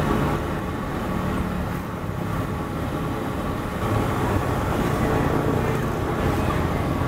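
Hot oil sizzling steadily as a bundle of skewered sempolan balls deep-fries in a steel pan over a gas burner, under a steady low rumble.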